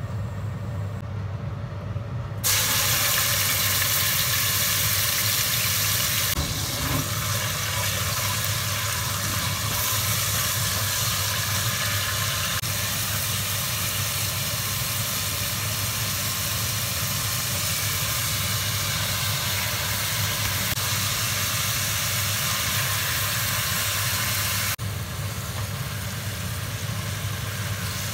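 Meat frying in hot oil in a pot, a steady sizzle stirred with a silicone spatula, over a steady low hum. The sizzle starts sharply about two and a half seconds in and drops off near the end.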